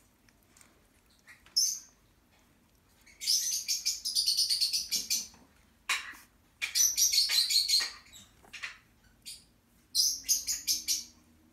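Young Xoloitzcuintli puppies squealing in high-pitched runs of rapid squeaks, three times, with a few single squeaks between.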